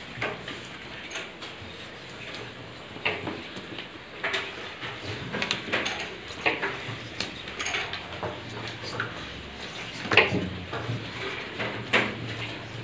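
Irregular clicking and clacking of abacus beads being flicked, the sharp clicks coming unevenly, with a few louder clacks.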